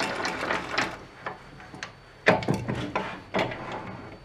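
Metal clunks and clicks of a lathe's tailstock turret head being handled and turned to bring the next tool in line. A scraping start is followed by several sharp knocks, the loudest a little over two seconds in.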